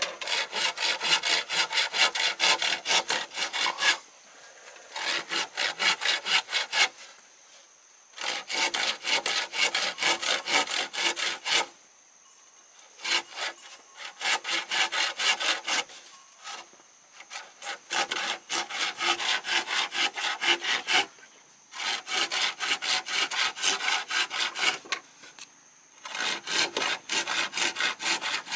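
Hand saw cutting through bamboo in bouts of rapid back-and-forth strokes, each bout lasting a few seconds, with short pauses between them.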